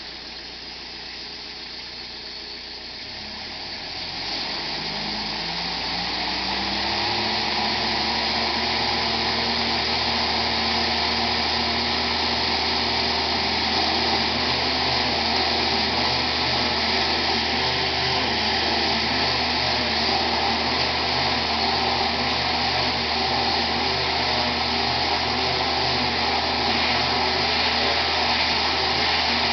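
37hp Kubota engine of a trailer-mounted poultry equipment washer revving up a few seconds in, then running steadily at working speed with a loud steady rush of water spray from the washer.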